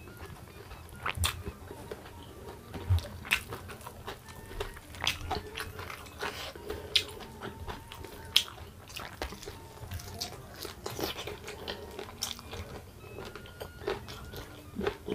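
Close-miked mouth sounds of a person chewing crunchy food, with irregular sharp crunches and smacks throughout.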